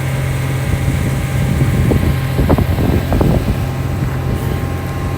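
Diesel engine of a Komatsu long-reach excavator running steadily, swelling a little under load for a second or two in the middle.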